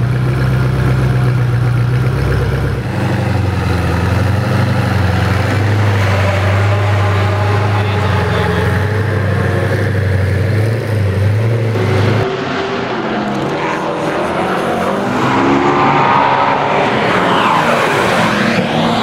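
Koenigsegg One:1's twin-turbo V8 idling with a steady low note, then pulling away slowly. About twelve seconds in the car is out on the track, its engine rising and falling in pitch as it accelerates.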